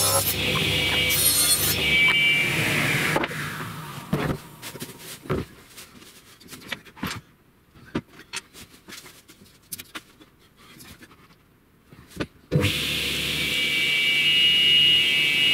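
Table saw cutting 15 mm laminated plywood, then switched off: its high whine falls away over about two seconds. A few knocks and clicks follow as the boards are handled, then about three quarters of the way in the saw starts up suddenly and runs at a steady whine.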